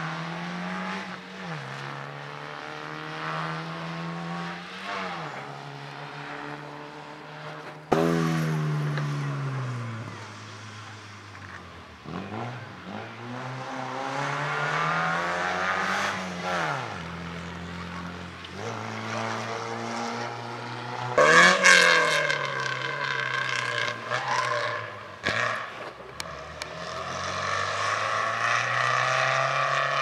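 Rally car engine revving hard through the gears, its note climbing and dropping with each shift and fading and swelling as it moves. There are sudden loud bursts about eight seconds in and again about 21 seconds in.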